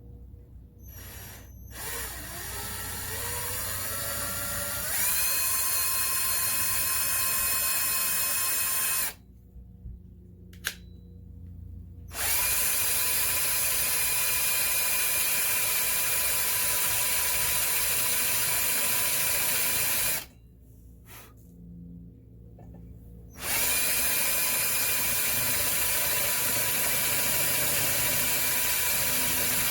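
Power drill running in three long runs: it spins up to a steady high whine, stops, and starts again twice, with short pauses between.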